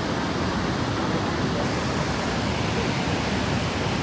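Steady rushing of Niagara Falls' water: a constant, even noise with no breaks.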